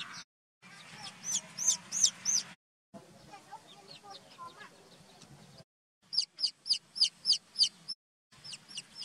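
Baby chicks peeping: high-pitched cheeps in quick runs, loudest as a string of about eight shrill peeps near the end, broken by a few short complete silences.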